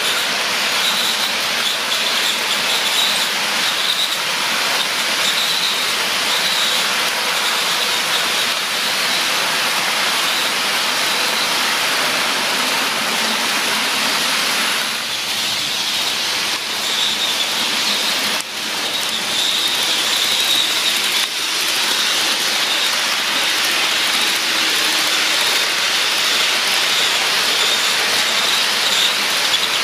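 HO scale model freight trains rolling along the track: a steady rush of many small wheels running on the rails, with a high squeal that comes and goes.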